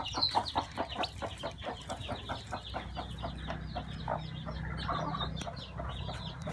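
Chicks peeping in a rapid, unbroken series of short high calls, with a low steady hum joining about halfway through.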